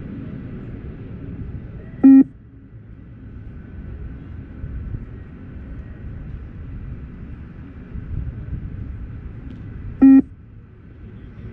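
Two short electronic beeps from a beep-test (20 m multi-stage shuttle run) recording, about eight seconds apart, each marking the moment the runner must reach the next line; the spacing fits level 2 of the test. Under them runs a steady low rumbling background with a faint hum.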